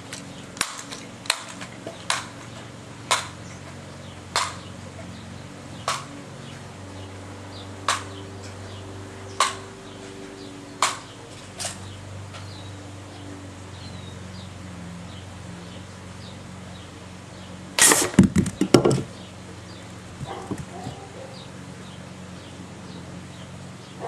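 Single sharp gunshots from a small gun aimed at a whipped cream can, about ten of them one to two seconds apart. About three-quarters of the way in comes a dense cluster of loud cracks and a burst as the can is hit and knocked over.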